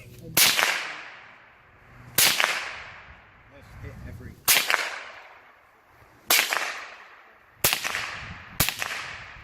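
Six gunshots at an uneven pace, one every one to two seconds, each a sharp crack followed by a trailing echo.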